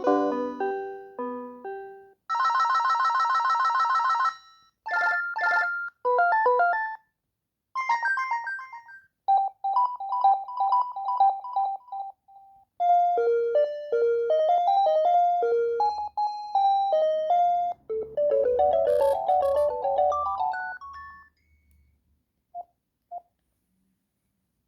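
Philips D215 cordless phone handset playing its ringtones one after another. First comes the end of a tune, then a buzzing trill-like ring, then several short electronic melodies, each separated by a brief pause. Two short beeps come near the end.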